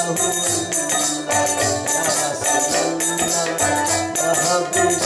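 Bengali fakir folk music: a plucked stringed instrument playing over steady, rhythmic jingling percussion.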